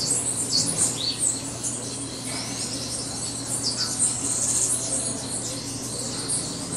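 A flock of bananaquits chirping and twittering in many thin, high, overlapping notes, over a steady low hum.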